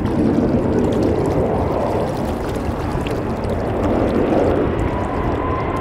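Jet airliner engines rumbling, with an engine whine that comes in near the end and slowly rises in pitch.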